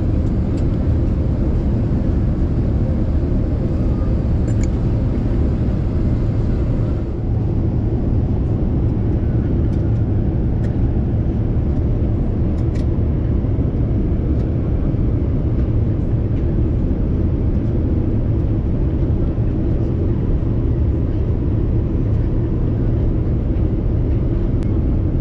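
Steady cabin noise of a Boeing 787-9 airliner in flight: a low, even rush of airflow and engine sound, with a brief slight dip about seven seconds in.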